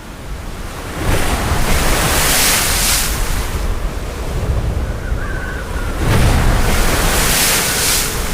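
Strong wind blowing hard and buffeting the microphone, swelling in two big gusts, about a second in and again about six seconds in.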